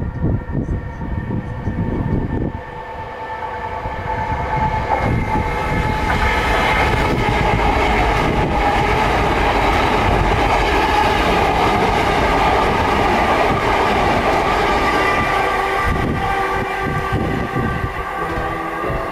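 Electrostar electric multiple unit moving through the station: a low rumble at first, then from about three seconds in a loud, steady whine of several high tones together that holds on.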